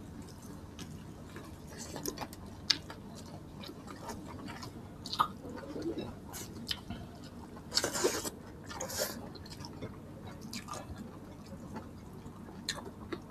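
Close-up chewing and wet mouth sounds of people eating a soupy meal of pork, greens and rice by hand, with scattered smacks and clicks; a louder, longer smacking sound about eight seconds in.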